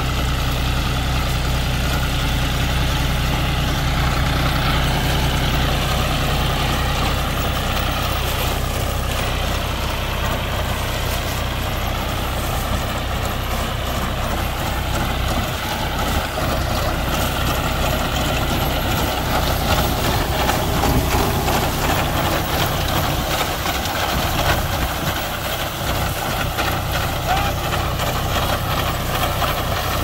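Four-wheel-drive farm tractor's diesel engine running steadily. About halfway through, its deep hum drops back and a busier clattering noise takes over.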